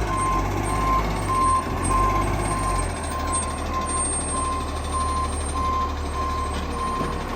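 Garbage truck reversing: its reversing alarm beeps steadily at one pitch over the low diesel engine, which eases off about three seconds in.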